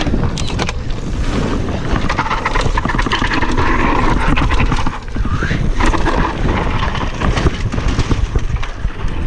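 Wind rushing over the microphone of a cross-country mountain bike going fast down a rough trail, with the bike rattling and knocking over roots and bumps.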